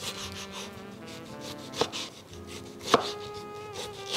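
Chef's knife dicing tomato on a wooden cutting board: a run of knife strokes knocking on the board, with three sharper knocks about two, three and four seconds in.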